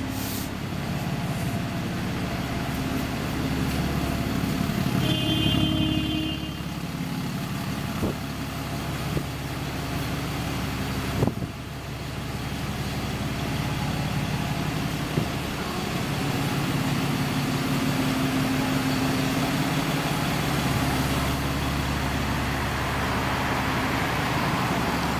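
Alexander Dennis Enviro400 MMC double-decker bus engine idling steadily at a stop. A brief high tone sounds about five seconds in.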